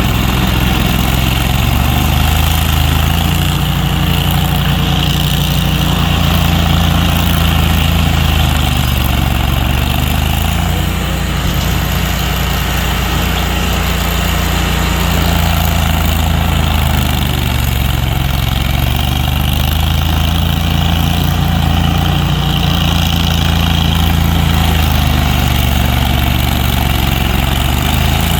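A large engine running steadily at a low idle, its deep hum unchanging, with a hiss of machine noise above it.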